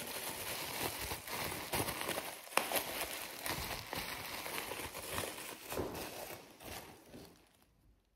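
Rustling and crinkling of packaging as objects are handled on a counter, with scattered light clicks and taps; it dies away near the end.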